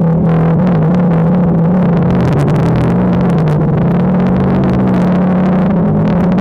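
DJI Phantom 2 quadcopter's motors and propellers buzzing steadily in flight, the pitch wavering slightly as the motor speeds change.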